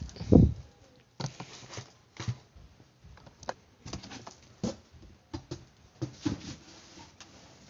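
Cardboard boxes and boxed parts being handled: irregular knocks, taps and rustles, with a loud low thump about half a second in.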